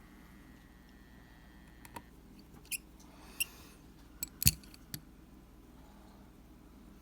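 Light clicks and taps of a small screwdriver and tools on an iPhone's internal shield plate as its tiny screws are run down, about half a dozen in all, the sharpest about four and a half seconds in.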